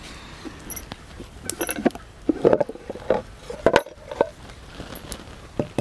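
Earthenware (clay) pot lid being handled, giving a run of knocks and clinks. They are thickest between about one and a half and four seconds in, with another near the end.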